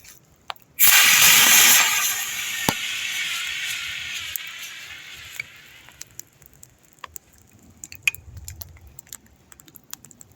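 A small expired portable fire extinguisher discharging: a sudden loud hiss that weakens steadily and dies away over about five seconds as its little remaining pressure runs out.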